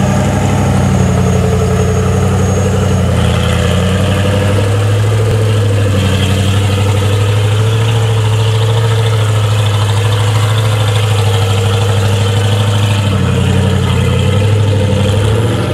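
Rock crawler buggy's engine running steadily under load as it climbs a steep rock slope, its pitch shifting a few times with the throttle.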